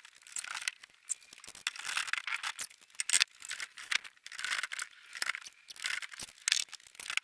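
A metal roof rack cross bar scraping and rattling against the frame as it is worked into a tight-fitting hole, with many irregular sharp scrapes and knocks.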